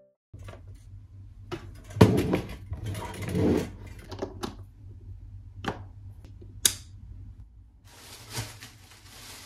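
Household handling noises in a small room: scattered clicks and knocks with rustling, the loudest knock about two seconds in, a sharp click past the middle and a short hiss near the end.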